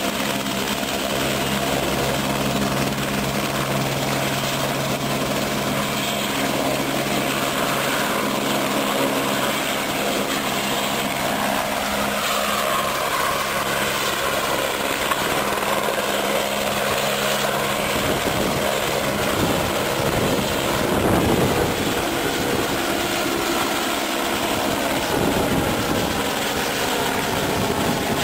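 Light single-engine helicopter of the AS350 Écureuil type running: a steady turbine hum and rotor noise, becoming rougher and louder with a heavier rotor beat past the middle as it lifts a slung load on a long line and climbs.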